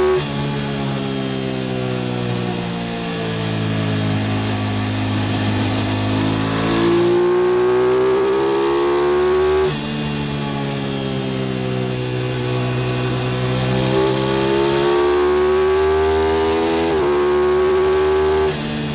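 Aprilia RS660's parallel-twin engine pulling hard under throttle, its pitch climbing through the revs more than once. It shifts up with a brief dip in pitch, and the throttle closes suddenly about halfway through and again just before the end.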